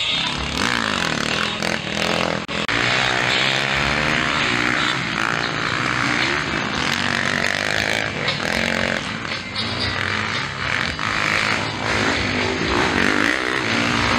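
Motocross dirt-bike engines revving, the pitch rising and falling over and over as the riders throttle through corners and change gear.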